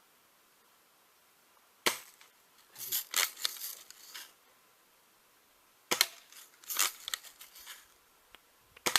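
BB gun shots: three sharp cracks, about four seconds and then three seconds apart, each followed by a quick cluster of smaller clicks and knocks.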